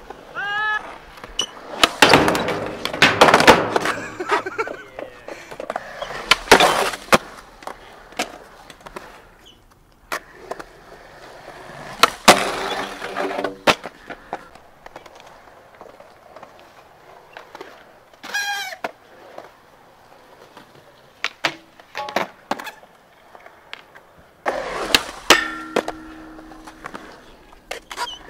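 Skateboards rolling on concrete with repeated sharp clacks of boards popping and landing. A high squealing scrape comes a little past the middle, with another near the start.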